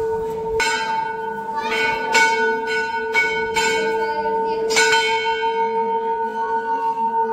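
Temple bells struck by hand at irregular intervals, about half a dozen strikes in the first five seconds and fewer after. A steady ring holds between the strikes.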